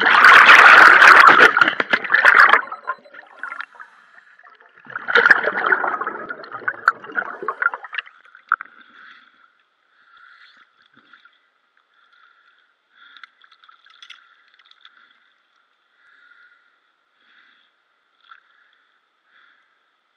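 Scuba regulator exhaust bubbles heard underwater: two loud bubbling bursts a few seconds apart, as a diver breathes out. After about eight seconds only a faint, patchy hiss remains.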